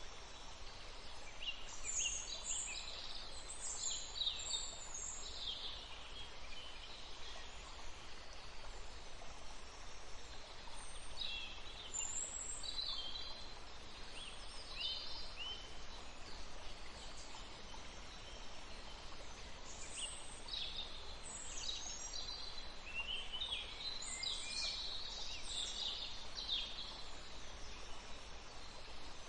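Small birds chirping and trilling in three spells: about 1 to 6 seconds in, around 10 to 15 seconds, and from about 20 to 27 seconds. Underneath them runs a steady, even background hiss.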